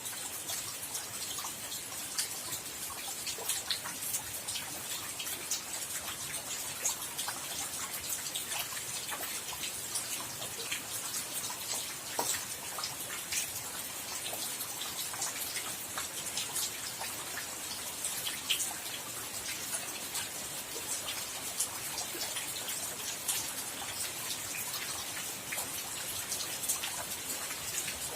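Steady rain: an even hiss dotted with many separate sharp ticks of drops striking.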